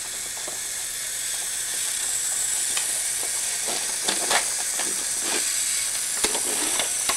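Geotrax toy train locomotive's small battery-powered motor and gears whirring steadily as it runs along plastic track, growing a little louder, with a few light clicks.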